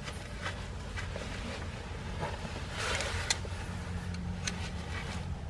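Screw extractor being turned in the rusted ABS sensor bore of a Ford F-150 steering knuckle to dig out the stuck remains of the old sensor: faint metal scraping and scattered clicks, with a louder scrape about three seconds in, over a low steady hum.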